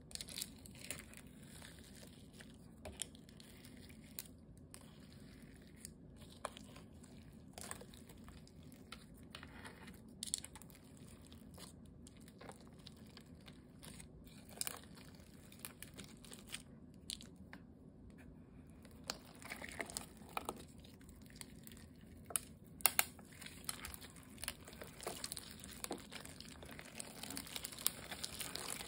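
Slime being stirred and folded with a plastic spoon in a clear plastic bowl, giving scattered sticky clicks and crackles. Near the end the slime is pulled and stretched by hand, and the crackling comes thicker.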